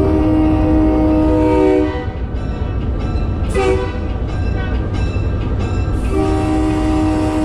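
Diesel locomotive air horn heard from inside the cab, several notes sounding together as one chord: a long blast of about two seconds, a short blast near the middle, then another long blast starting near the end. The locomotive's engine rumbles steadily underneath.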